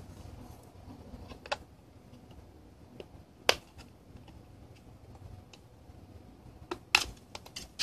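The plastic case of a Western Digital My Passport portable hard drive clicking and snapping as a pry tool works along its seam to open it. There is one click about a second and a half in, a louder snap about three and a half seconds in, and a quick run of clicks near the end.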